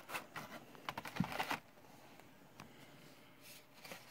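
Small clicks and plastic taps from handling carded model cars in their plastic packaging: a quick run of clicks with a louder knock about a second in, then a few scattered clicks and a faint rustle.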